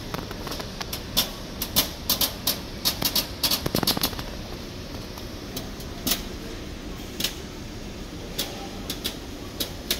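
A string of sharp, irregular clicks and taps, close together in the first four seconds and more scattered after, over a steady background noise.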